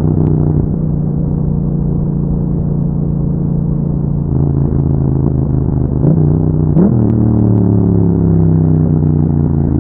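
2021 Yamaha MT-07's 689 cc parallel-twin engine running through an aftermarket Akrapovic exhaust while riding, its revs sinking slowly. About seven seconds in the revs climb sharply and then drop to a lower, steady pitch.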